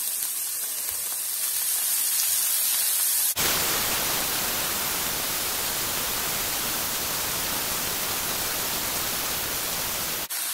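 Sauerkraut sizzling in hot sunflower-type vegetable oil in a frying pan: a steady hiss that turns abruptly fuller and louder about three seconds in.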